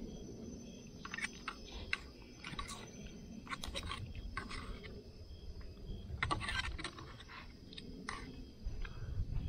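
Fork scraping and clinking against a metal tin of rice in irregular short strokes while a person eats, with chewing between strokes.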